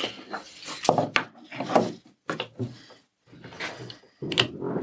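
Plywood pieces knocking and scraping against each other and the bench as a stack is tapped into alignment, with a few irregular wooden knocks, then a one-handed bar clamp is set against the stack near the end.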